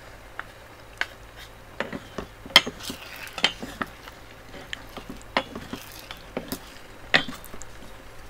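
Wooden spatula scraping and knocking against an electric cooking pot while stir-frying oysters in batter: a string of irregular short scrapes and clicks.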